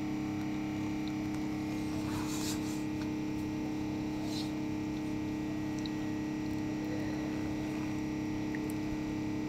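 Steady background hum, one low tone with several fainter tones above it, with a couple of faint soft rustles. The oil being poured onto the spoon makes no clear sound of its own.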